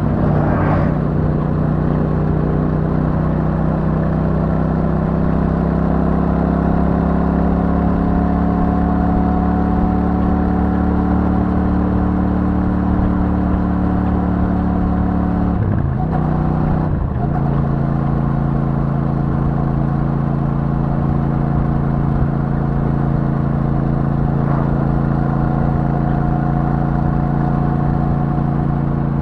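Royal Enfield Super Meteor 650's 648 cc parallel-twin engine through its stock exhaust, running at steady cruising revs that creep slowly upward. About sixteen seconds in the revs dip sharply twice in quick succession, then the engine settles at a slightly lower, steady pitch.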